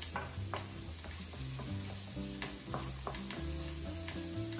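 Diced onion and crushed garlic sizzling in hot oil in a frying pan, stirred with a wooden spatula in scraping strokes about twice a second. Background music with sustained bass notes plays underneath.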